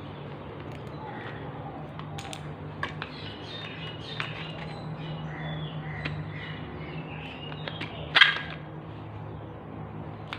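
A crow caws once, loudly, about eight seconds in, over a steady low hum, with faint bird chirps and a few light clicks.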